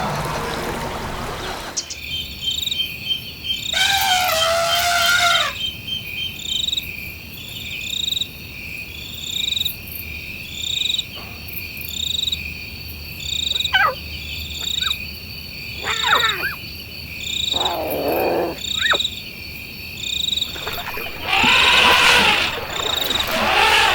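Chorus of frogs and insects calling steadily, with a short chirp repeating about once a second. A few louder animal calls rise over it, around a quarter of the way in and again near the end.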